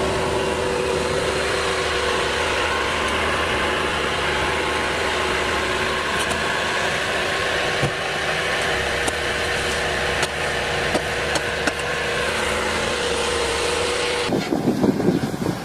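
Engine of a working machine running at a steady speed with a constant hum. Near the end it cuts abruptly to a gusty rumble like wind on the microphone.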